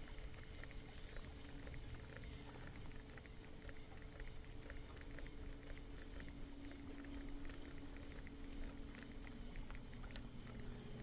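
Faint water lapping and splashing with many small ticks, over a low steady hum from a boat motor.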